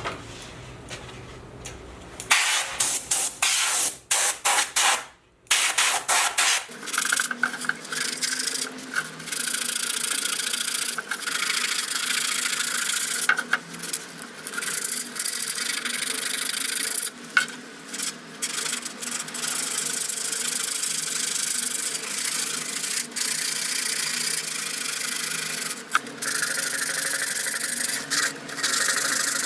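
A power sander working wood, its abrasive rubbing across the surface over the steady tone of its motor. It starts and stops in short spurts in the first few seconds, then runs continuously.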